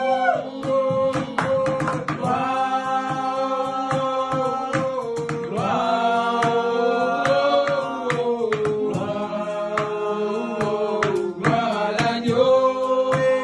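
Voices singing a slow worship song together, holding long notes and sliding between them, over a steady run of sharp percussive beats.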